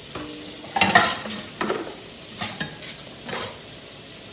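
Chicken wings frying in oil with a steady sizzle. Several short kitchen clatters come over it, the loudest about a second in.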